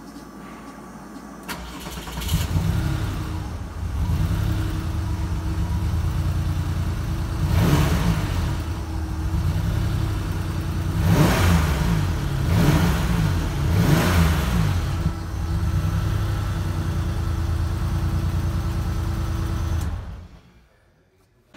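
1991 Porsche 964's air-cooled flat-six cold-starting: it cranks and catches about two seconds in, then runs. It is blipped up in four short rev bursts and settles back to a steady idle each time. It is switched off near the end and cuts out abruptly.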